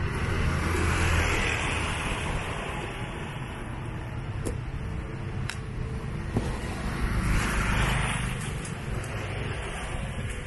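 Road traffic passing close by: two vehicles swell up and fade away, one about a second in and another near eight seconds, over a steady low rumble. A few sharp clicks come in between.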